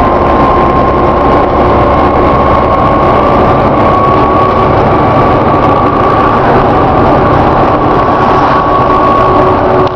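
Volvo B7TL double-decker bus running, with a bad, steady groaning tone held over the low engine and road rumble, its pitch rising a little partway through.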